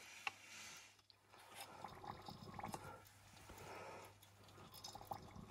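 Near silence, with faint scattered clicks and a low steady hum.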